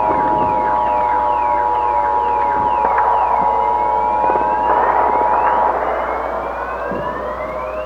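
Electronic emergency-vehicle sirens. A fast yelp of falling sweeps, about three a second, slows into long rising wails. Beneath it is a steady two-note tone that cuts off about six seconds in, and a few sharp bangs.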